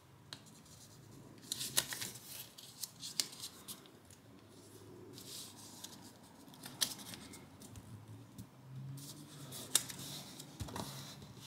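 Sheet of origami paper being folded and creased by hand: crisp paper crinkling and rustling, in two spells about two seconds in and again near the end, with a few single crackles between.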